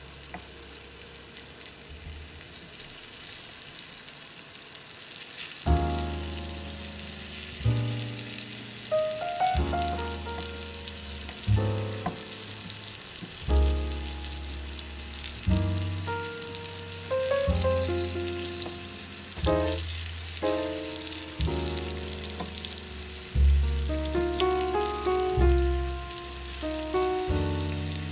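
Oil sizzling steadily as battered tempura fries in a miniature pan. Background music with a bass line comes in about five seconds in and is louder than the sizzle from then on.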